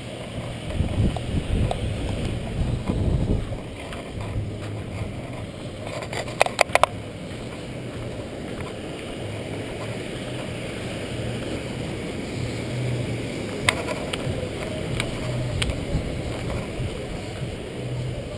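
Steady outdoor rush of wind and breaking surf, with wind buffeting the microphone in the first few seconds. A quick run of sharp clicks about six seconds in, and a single click later on.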